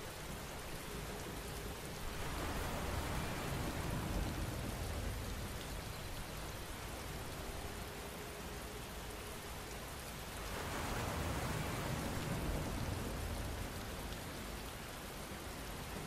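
Steady rain hiss that twice swells louder for a few seconds, with more low rumble in each swell.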